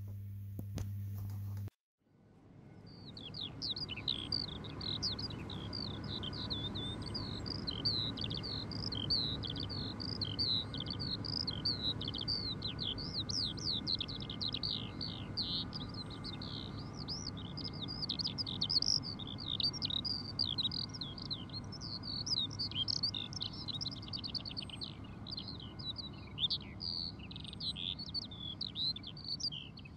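Continuous rapid, twittering birdsong that fades in about three seconds in, over a faint low background hum.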